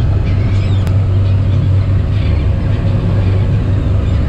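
Boat engine running at a steady low hum while towing a shrimp trawl, with gulls calling faintly overhead and a single light click about a second in.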